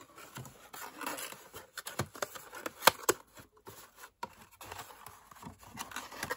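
Small brown cardboard packaging box being folded and put together by hand: scattered creasing clicks, rustles and scrapes of card, with two sharper snaps about three seconds in.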